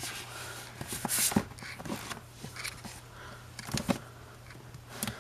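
Handling noise of books being moved and set down: scattered rustles and light knocks, with a louder rustle about a second in and a couple of knocks near four seconds, over a faint steady low hum.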